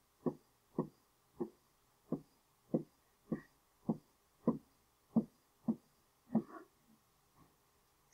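Pen strokes on an interactive whiteboard: about eleven short taps, one for each tally mark drawn, coming roughly every half second and stopping near the end.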